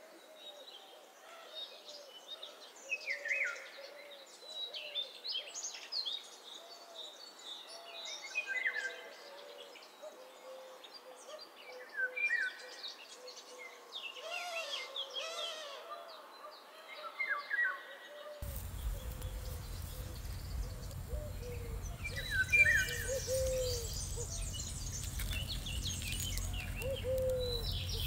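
Several birds chirping and calling, over a low call repeated many times. About two-thirds of the way through, a low rumble of wind noise sets in suddenly.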